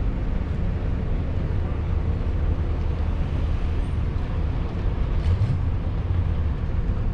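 Car driving at a steady pace: a low, even engine and road-noise rumble heard from inside the vehicle.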